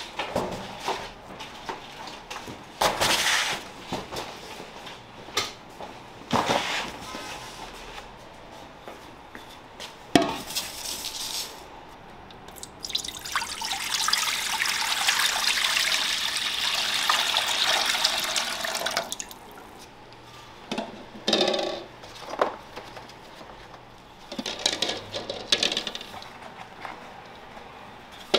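Water pouring in a steady stream into a large metal pot for about six seconds in the middle. Before and after it come scattered knocks and clatters of kitchen handling.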